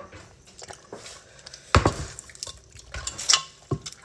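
Wet, squishy sounds of saucy noodles and seafood being handled, with scattered clicks and two louder clacks, one about two seconds in and one about a second and a half later, as metal tongs work in a pot of sauced spaghetti.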